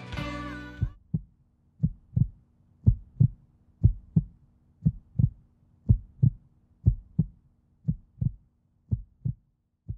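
Heartbeat: pairs of low lub-dub thumps, about one pair a second, over a faint steady hum. The last of the rock music fades out in the first second.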